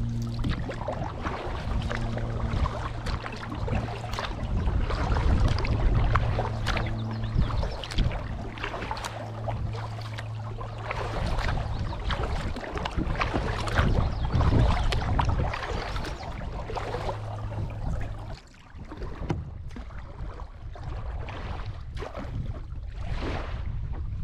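Small paddled boat moving down a shallow, rocky river: water rushing and splashing under repeated knocks. A low hum comes and goes, stopping about three-quarters of the way through.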